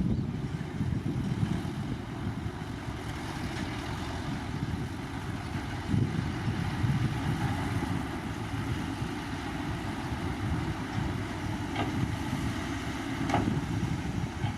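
Heavy diesel earthmoving machinery running steadily, a rough low rumble, with two short sharp sounds near the end.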